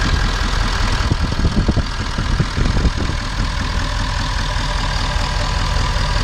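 Ford 6.7 Powerstroke V8 turbodiesel idling steadily, a dense, even diesel clatter with a hiss above it. A few louder low bumps come between one and three seconds in.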